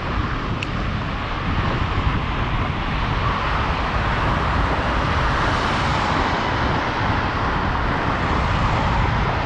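Road traffic passing on the adjacent multi-lane road, mixed with wind rumble on a bicycle-borne action camera. The traffic noise swells around the middle.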